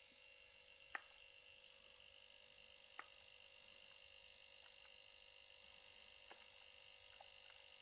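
Near silence: a faint steady hum, with two small clicks about a second and three seconds in.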